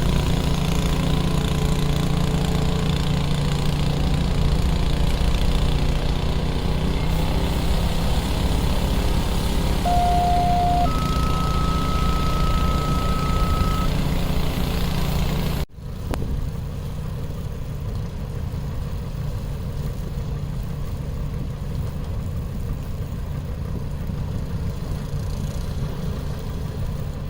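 A vehicle engine running steadily, with two electronic beeps: a short lower one, then a longer, higher one lasting about three seconds. After a sudden cut, a steady low rumble of street traffic.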